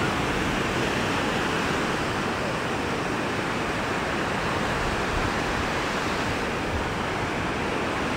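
Sea surf washing onto a beach: a steady rushing hiss at an even level, with no separate wave breaks standing out.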